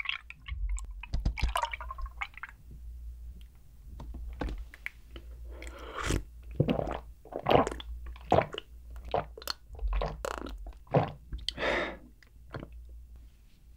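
Milk pouring from a carton into a glass mug for the first couple of seconds. Then a run of close-miked gulps and swallows as the milk is drunk, about one to two a second.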